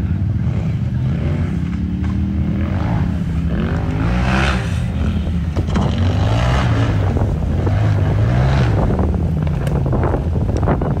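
Off-road racing buggy's engine revving hard, its pitch repeatedly rising and falling, with some wind noise on the microphone.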